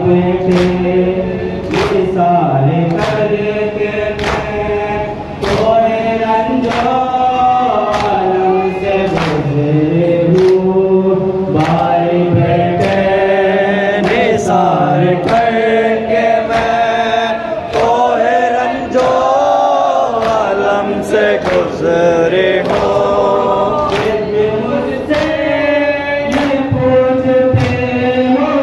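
Voices singing a noha, a Shia Muharram lament, in chorus, with the sharp slaps of mourners beating their chests (matam) in unison about once a second.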